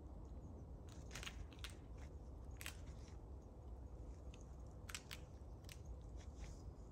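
Bark or dry wood being pried and broken off a standing dead tree by hand: a series of short, irregular crunching cracks.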